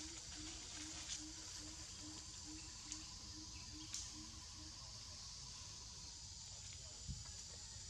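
Faint tropical forest ambience: a steady high insect drone, with a low note repeated about twice a second that stops about two-thirds of the way through, and a few soft clicks.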